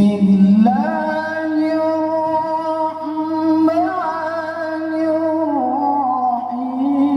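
A male qori reciting the Quran in the melodic tilawah style. He holds long notes, sliding up in pitch about a second in and again near four seconds, with fine melodic ornaments around six seconds.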